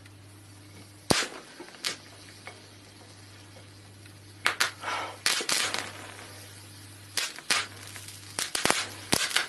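Electric arc crackling and popping where welding-lead electrodes touch a steel wrench as the current heats it to glowing. The sharp pops are irregular, a few early and then in dense clusters, over a steady low hum.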